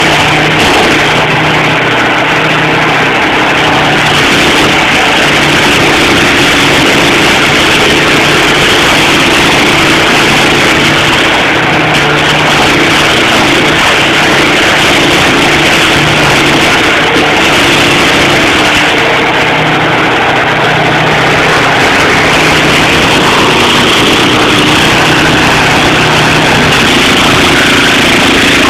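Stump grinder running steadily at a constant engine speed, a loud, even mechanical drone.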